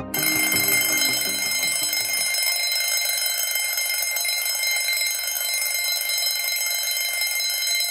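Alarm clock ringing loudly and without a break, signalling that the countdown timer has run out. The last of the background music fades out beneath it in the first two seconds.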